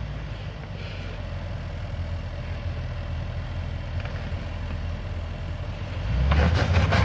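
Range Rover Sport's engine running at low revs as the SUV crawls over a rocky trail. About six seconds in, the engine note grows louder as it takes more power, with rougher noise over it.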